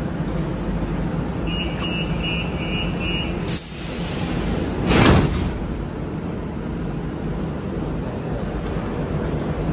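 Lisbon Metro train's sliding doors closing: a warning tone sounds for about two seconds, then a sharp hiss of air, and the doors shut with a loud burst of noise about five seconds in, over the steady hum of the standing train.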